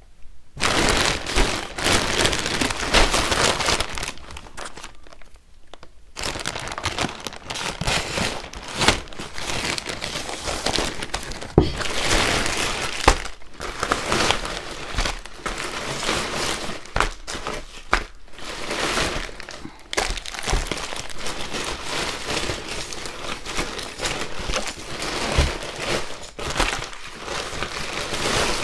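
Plastic poly mailer bags crinkling and crackling as they are handled and rummaged through, with a quieter spell about four seconds in.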